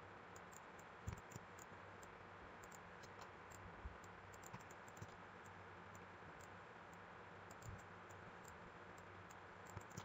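Faint, scattered clicks of a computer mouse and keyboard over a low steady hiss.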